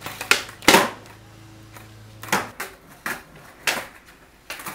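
Skateboard clacking on a concrete floor as flip tricks are tried: a run of sharp knocks from the tail popping and the wooden deck and wheels hitting the ground, the loudest about a second in.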